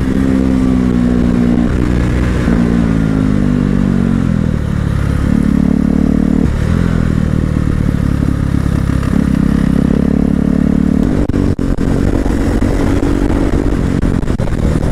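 Motorcycle engine heard from on board while riding. Its note holds steady, then falls about two seconds in and changes in steps every few seconds as the throttle and gears change, with steady wind rush underneath.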